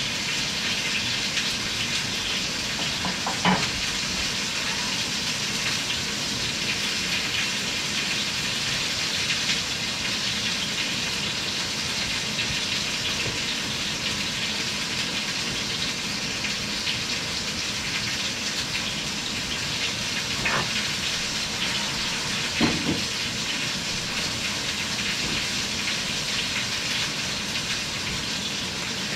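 Steady sizzle of food frying on the stovetop, broken by a few brief knocks.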